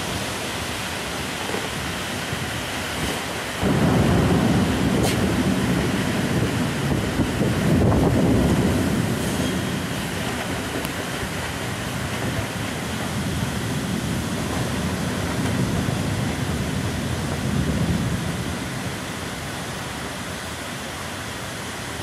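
Heavy rain pouring steadily in a thunderstorm. About four seconds in, a roll of thunder breaks in suddenly and rumbles on for several seconds before fading, and a weaker rumble swells again later.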